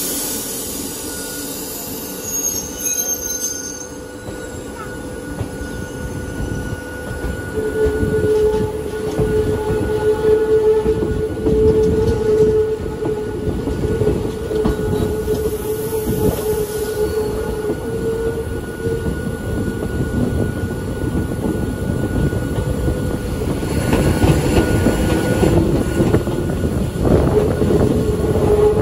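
One of the Hakone Tozan Railway's oldest electric cars running uphill, with a steady rumble from wheels and rails. A wheel squeal holds on one pitch through much of the middle, breaks off, and returns near the end, as the wheels grind around the line's tight curves. A fainter, higher squeal sounds in the first few seconds.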